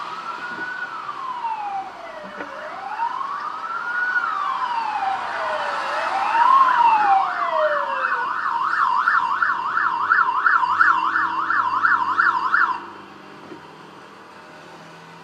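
Emergency vehicle siren in a slow wail, its pitch sweeping up and down over a few seconds at a time. It then switches to a fast yelp of about four warbles a second, which cuts off suddenly about two seconds before the end, leaving quieter traffic noise.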